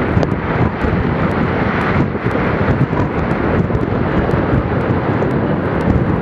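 Strong gusty wind buffeting the microphone in a loud, steady rumble, over heavy waves on Lake Superior.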